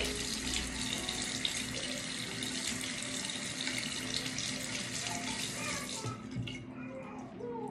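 Bathroom sink tap running, water splashing into the basin as a steady hiss, turned off about six seconds in.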